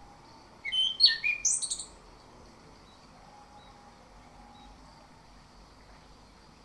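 Orange-headed thrush singing one short phrase: a quick, loud run of high notes jumping in pitch, starting about half a second in and over in just over a second.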